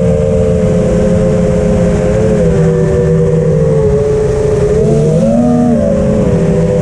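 FPV quadcopter motors whining in several close pitches that drift together with throttle, rising briefly about five seconds in, over a low rumbling noise.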